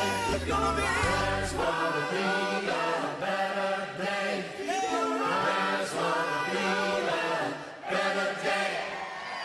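Pop-worship song soundtrack in a vocal section of layered, choir-like voices singing sustained lines without clear lyrics; the deep bass drops out about two seconds in, leaving the voices carrying the sound.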